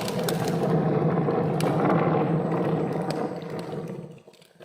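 Rushing, gurgling sound coming from the cut in a felled ironwood tree as red liquid flows out, like a flood and like the breath of a slaughtered cow. It holds steady, then fades away about four seconds in.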